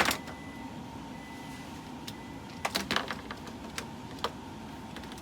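Irregular clicks and taps of small plastic toys and their packaging being handled, with a sharp knock at the very start and a quick cluster of clicks a little before the midpoint, over a steady low room hum.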